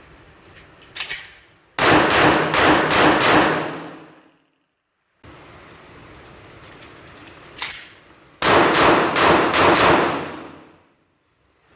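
Glock 30 .45 ACP pistol fired in two quick strings of about five shots each, the second string a few seconds after the first, each dying away after the last shot.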